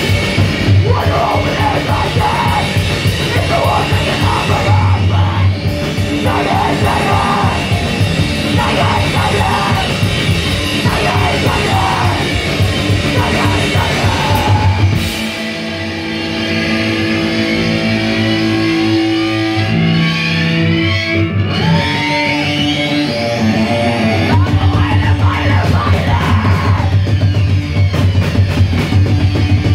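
Live heavy rock band playing loud: distorted guitar, bass and drums with a yelled lead vocal. For about nine seconds in the middle, the drums and bass drop out, leaving held and bending guitar notes, before the full band crashes back in.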